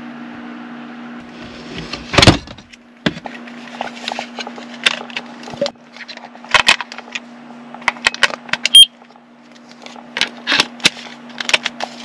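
Clicks, knocks and plastic clatter from a small round battery-powered plastic gadget being handled, opened and snapped shut, with a loud knock about two seconds in. A steady low hum from a small electric fan runs underneath.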